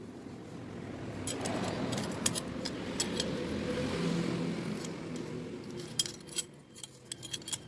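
Small metal bike parts clinking and rattling as they are handled, with a few sharp clicks. Under them a broad rumbling noise swells up and fades away in the middle.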